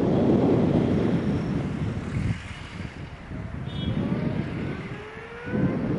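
Wind gusting on the camcorder microphone, a loud low rumble that drops away about two seconds in and comes back near the end. In the lull a faint rising whine can be heard in the distance.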